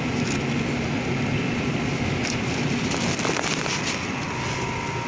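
Steady hum and whoosh of a refrigerated supermarket display case, with a few faint clicks and rustles of handling.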